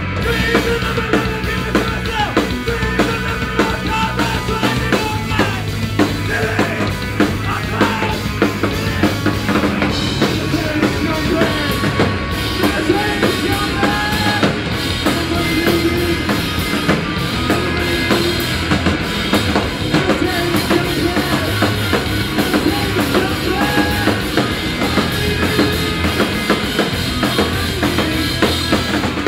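Loud live rock band playing an instrumental passage with no singing: a full drum kit with kick, snare and cymbals driving steadily under two electric guitars.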